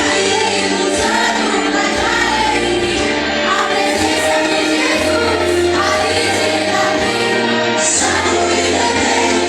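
Worship song sung by a group of voices over instrumental backing, with held bass notes that change every second or two.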